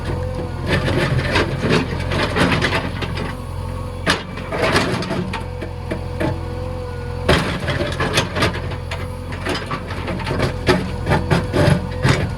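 Backhoe loader's diesel engine running steadily, with many sharp knocks and cracks over it.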